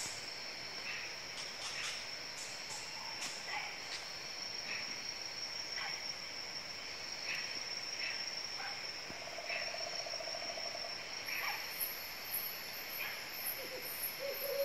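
Tropical forest ambience: a steady, high-pitched insect drone, with short calls repeating about once a second. A brief low trill sounds near the middle, and a second, higher pulsing insect song joins about two-thirds of the way in.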